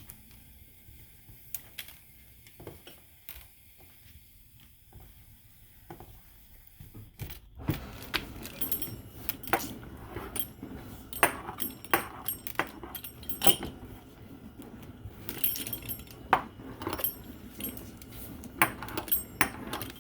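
Pizza cutter clicking and clinking against the baking dish as it slices tortillas, with sparse faint clicks at first and then, from about seven seconds in, a quick, busy run of metallic clinks.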